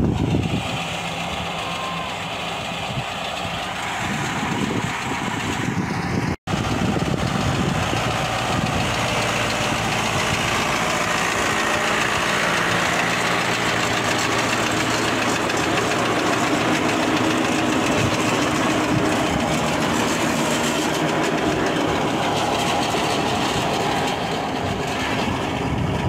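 Tractor diesel engine running steadily under load as it pulls a potato digger through the soil, with the digger's working noise mixed in. The sound drops out for an instant about six seconds in.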